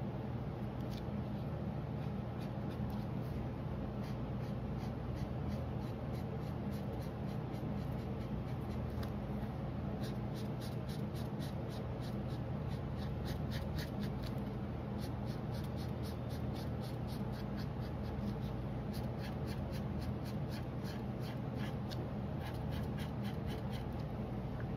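Green marker scribbling on drawing paper in quick back-and-forth strokes, several a second, coloring in a ring. The strokes are busiest in the second half, over a steady low hum.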